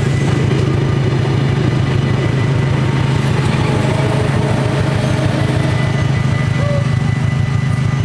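Level-crossing bells ringing steadily as a double-deck electric train with its locomotive rolls past and clears the crossing, over the fast, even pulse of an idling vehicle engine.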